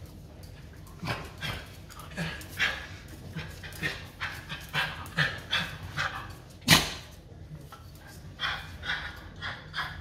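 Small curly-coated dog making a string of short excited whines and yips, about two a second, while being petted, with one sharp, much louder sound about two-thirds of the way in.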